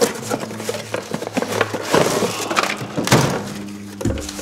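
Irregular clicks, knocks and scraping of hard items being handled and set down.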